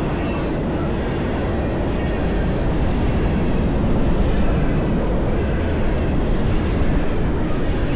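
Freight train passing at speed: a steady, loud rolling rumble of wheels on the rails that swells slightly around the middle.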